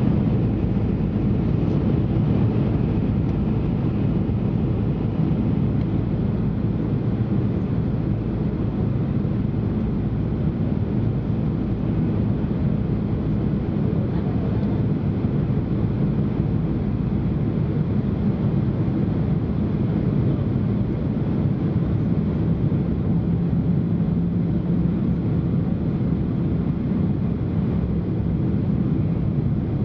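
Steady cabin noise inside a Boeing 767 airliner descending toward landing: a continuous rumble of engines and airflow, heaviest at the low end. A faint steady hum joins in about two-thirds of the way through.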